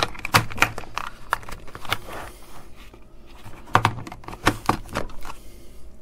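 Plastic housing of a plug-in remote-controlled mains socket clicking and knocking as it is pushed and seated into a multi-gang extension lead, a run of sharp clicks with a louder cluster of four knocks about four to five seconds in.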